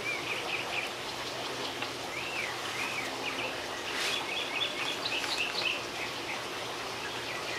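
Songbirds chirping repeatedly, a run of short rising-and-falling chirps over faint outdoor background noise, with a brief soft noise about four seconds in.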